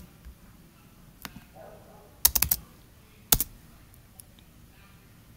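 Chromebook keyboard keys being pressed as a command is copied, pasted into the terminal and entered: a single key click about a second in, a quick run of three or four clicks near the middle, then a couple more a second later.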